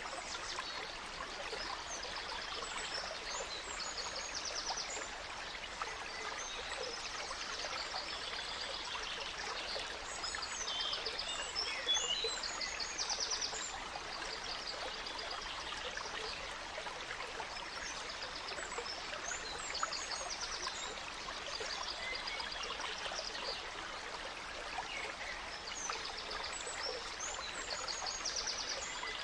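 A gentle stream running steadily, with forest birds singing over it in short bursts of quick trills and chirps that come and go.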